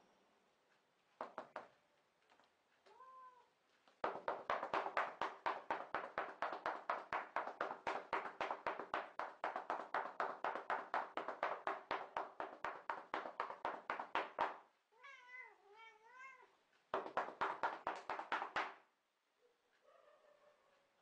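A domestic cat giving short, wavering meows, one about three seconds in and a longer warbling one past the middle, around a long run of quick, even taps or slaps, about five a second, that stops and then starts again briefly.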